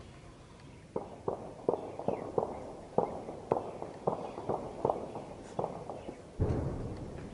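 Gunfire: a run of irregular single shots, two to four a second, starting about a second in, then one heavier boom with a longer rolling tail near the end.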